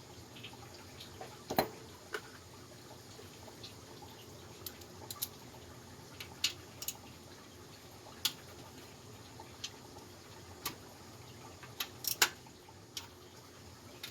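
Scattered sharp metal clicks and clinks of a 1/2 inch socket wrench and bolts being worked loose to take a plate off a Briggs & Stratton 19 hp opposed-twin engine. The loudest clicks come about a second and a half in and near the end.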